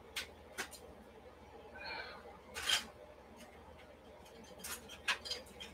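Faint, scattered clicks and short scrapes of painting tools handled at an acrylic paint palette while a colour is mixed. The loudest is a brief scrape near the middle, and a quick run of clicks comes near the end.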